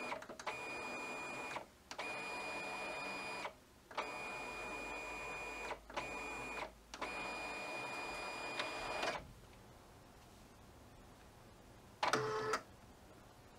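HID Fargo DTC4250e ID card printer's card-feed motor and rollers whirring in short runs, starting and stopping about five times as an alcohol cleaning card is driven back and forth to clean the rollers. It then goes quiet, with a short burst of noise near the end.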